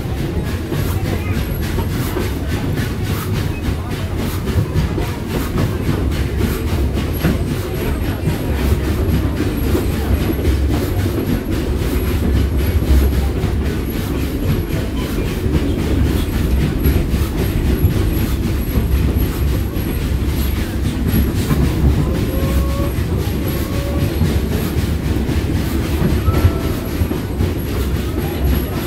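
Narrow-gauge train rolling along the track, heard from aboard an open passenger car: a steady low rumble with the wheels clicking and clattering over the rail joints.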